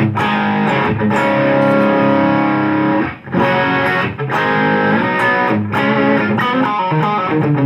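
Electric guitar with a humbucker played through an Idea Sound Product TS808 Tube Screamer–style overdrive pedal into a Mesa Boogie amp turned down low, drive set about halfway. Overdriven chords ring out, with a brief break about three seconds in, then more chords and single notes near the end.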